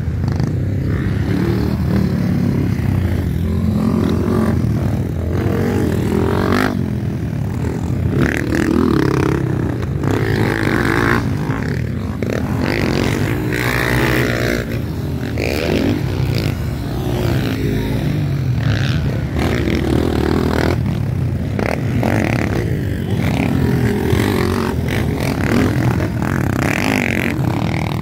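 Several motocross bikes riding past, their engines revving and easing off over the jumps, the pitch rising and falling with more than one bike heard at once.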